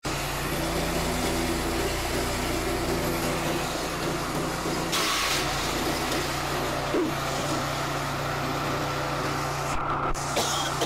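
Small petrol engine running steadily, driving a grass chopper (forage cutter) while a long stalk is fed in and cut. About five seconds in there is a short rush of chopping noise.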